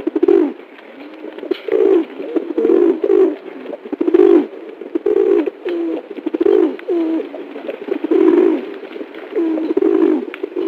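White domestic pigeon cooing over and over, about a dozen low calls in quick succession.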